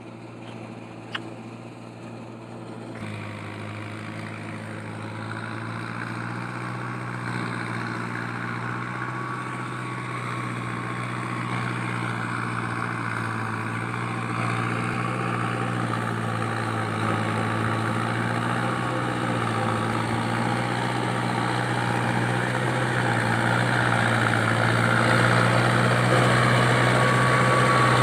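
Mahindra Arjun Novo 605 DI tractor's four-cylinder diesel engine running steadily under load while driving a rotavator through flooded paddy, growing steadily louder as the tractor comes closer. A short click about a second in.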